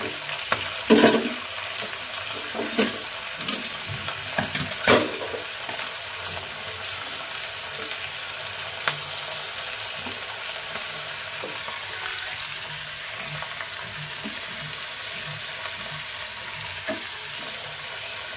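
Diced potatoes frying in oil in a black kadai, with a steady sizzle. In the first five seconds a metal spatula stirs them and knocks sharply against the pan several times, loudest about a second in and near five seconds.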